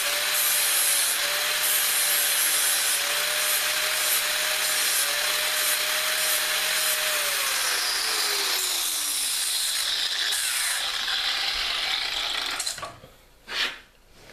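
Angle grinder running and grinding the end of a spring-steel cold chisel flat. Its steady whine drops in pitch about seven to nine seconds in while the grinding goes on, and the grinding stops about two seconds before the end, followed by a single knock.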